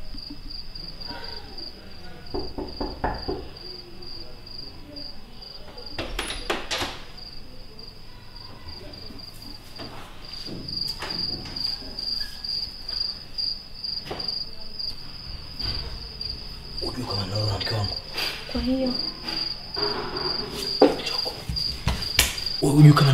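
A cricket chirps steadily, a high chirp repeated at an even rate. About six seconds in comes a short run of knocks on a wooden door.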